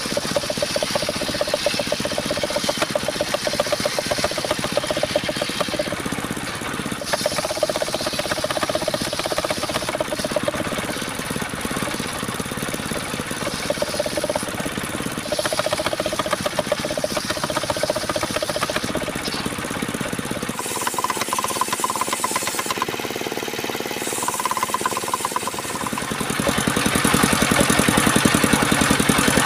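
Engine-driven homemade circular saw rig running, a steady machine noise with a fast pulse and a wavering whine. The sound changes abruptly about two-thirds of the way through and grows louder near the end.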